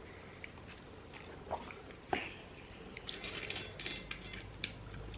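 Close-up eating sounds: chewing and biting into orange segments, with scattered small clicks and a short crackly rustle of handling food about three seconds in.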